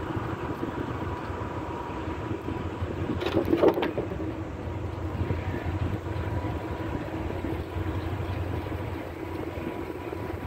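Freight train's wagons rolling past at a distance: a steady rumble of wheels on rail with a faint steady tone, and a short clatter about three and a half seconds in.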